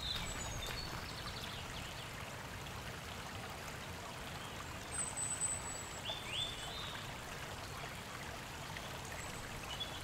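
Woodland outdoor ambience: a steady rushing hiss, like running water, with a few short bird chirps, most of them about five to six and a half seconds in.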